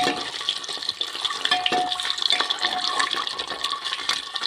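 Whole boiled eggs sizzling in hot oil in an aluminium pressure cooker, stirred with a metal spatula that clicks and scrapes against the pan.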